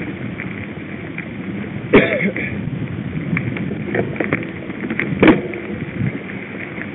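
Mountain bike rolling over rough trail: steady wind and tyre rumble with a scatter of small rattling clicks, and two sharp knocks, about two seconds in and again about five seconds in.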